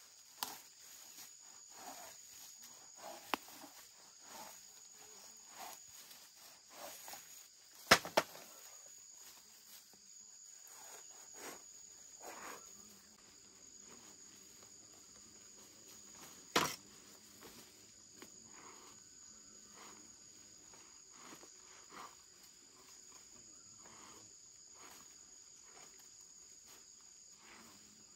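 Insects chirring steadily in a high, unbroken drone, with scattered light rustles and two sharp knocks, about 8 and 16 seconds in.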